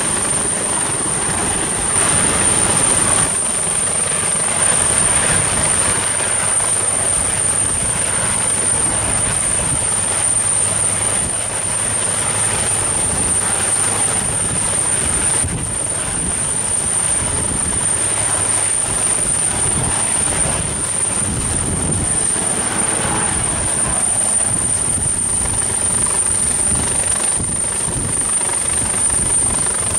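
Agusta Westland AW139 twin-turbine helicopter hovering close overhead: steady, loud rotor and engine noise with a thin high whine running through it.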